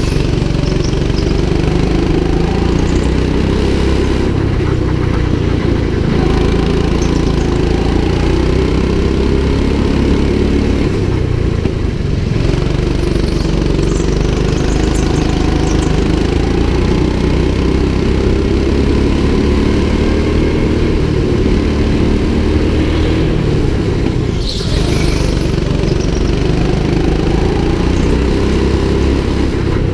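Rental go-kart's small engine running under load as the kart laps, its pitch rising and falling as it speeds up and slows through the corners.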